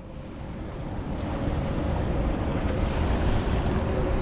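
Rushing roar of the Rhine Falls waterfall mixed with wind buffeting the microphone, fading up over the first two seconds and then holding steady, with a faint steady hum underneath.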